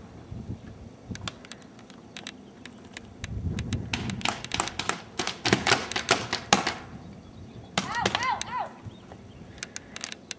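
Paintball markers firing sharp pops, single shots at first and then rapid strings about four to seven seconds in. A short, high shout rising and falling in pitch comes near eight seconds.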